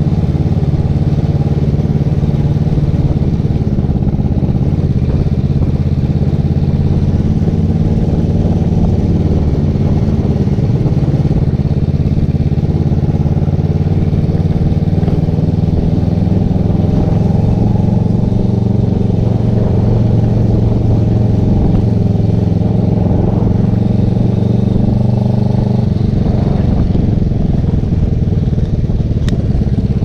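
Kawasaki Vulcan 500's parallel-twin engine running through fishtail exhaust tips fitted with homemade silencers, heard from the saddle while riding at low speed. The note holds steady, then changes near the end as the throttle changes.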